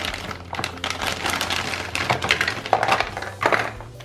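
Clear plastic packaging bag crinkling and rustling as hands handle it and pull plastic toy pieces from it, a busy run of quick crackles that dies away about three and a half seconds in.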